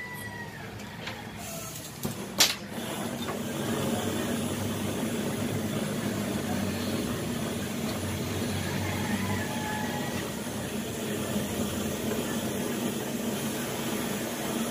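Hose-fed gas torch being lit: a few sharp clicks and a loud pop about two seconds in, then the flame burning with a steady rushing hiss.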